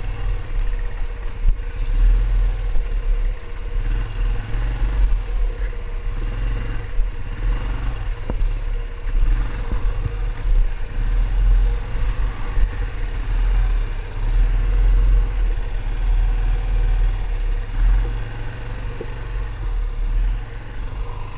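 Yamaha ATV engine running steadily as the quad rides over a rough dirt trail, under a continuous heavy low rumble.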